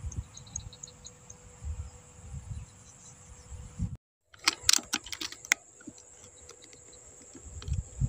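Steady high-pitched insect chorus, with low rumbling handling noise on the microphone in the first half. The sound cuts out completely for a moment about halfway through, then a quick cluster of sharp clicks follows.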